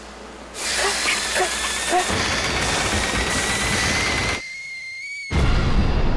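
Cartoon machine hissing steam, with a whistle slowly rising in pitch over the hiss and a low rumble joining in about two seconds in. The rumble and lower hiss cut out briefly about four seconds in, then a loud rumbling burst comes in near the end.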